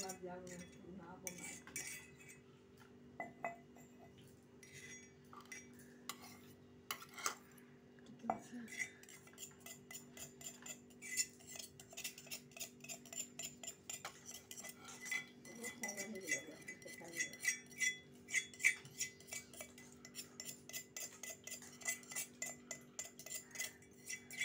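Steel mortar and pestle (imamdasta) clinking and scraping as crushed ginger is knocked and scraped out of the steel mortar into a steel bowl: many quick metal clinks, coming thicker in the second half, over a steady low hum.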